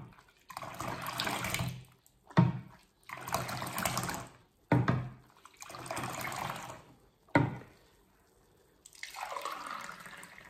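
Licorice-root sherbet being frothed with a small metal pot that is dipped into a glass bowl and poured back, about five times. Each dip starts with a sharp splash and is followed by a second or so of pouring liquid.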